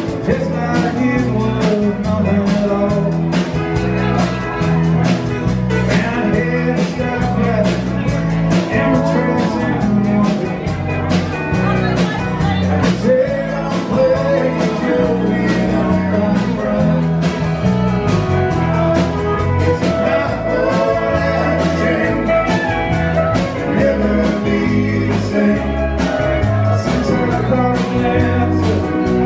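Live country band playing with a steady drum beat: pedal steel guitar, acoustic and electric guitars, electric bass and drum kit.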